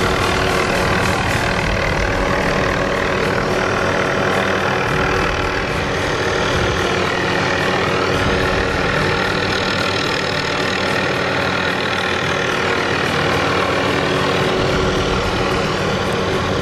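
MD 530F helicopter's Rolls-Royce 250 turboshaft engine and five-bladed main rotor running steadily in a hover, with a steady turbine whine and a whoosh that sweeps up and down as the helicopter shifts position.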